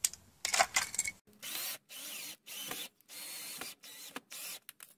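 Cordless drill driving a screw into vinyl J channel in about six short bursts, after a few sharp clicks.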